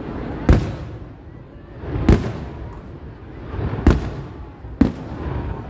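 Fireworks shells bursting overhead: four sharp bangs at uneven intervals, each trailing off in a rolling rumble.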